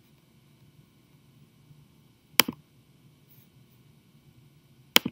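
Two sharp mouse clicks, one about halfway through and one at the very end, each a quick press-and-release pair: the button clicks of selecting edges of a 3D model one at a time in CAD software.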